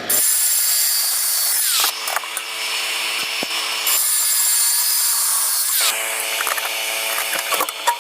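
A power tool cutting aluminum in two bursts of about two seconds each, its motor winding down after each cut. A steady low hum fills the gaps between the cuts.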